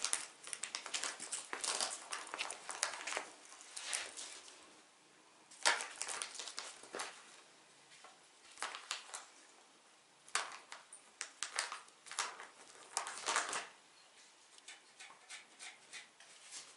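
Crinkling of an empty Felix cat-food pouch being batted and rolled on by a cat, coming in irregular spells of rustling with short pauses between them.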